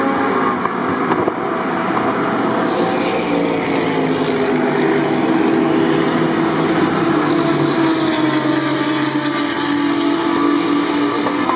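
Several GT3 race car engines running as a line of cars comes past one after another, their engine notes overlapping and shifting in pitch.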